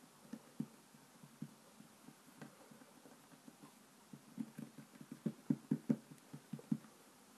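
Hands patting and pressing a sheet of play dough flat on a wooden table: soft, dull thumps, a few scattered at first, then a quick run of louder pats in the second half.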